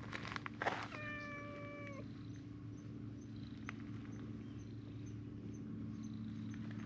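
A cat meowing once, a single level call about a second long starting about a second in, preceded by a couple of short taps or rustles.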